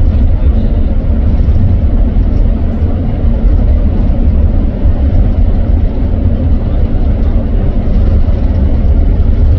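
Steady low rumble of road and wind noise from a car driving at highway speed.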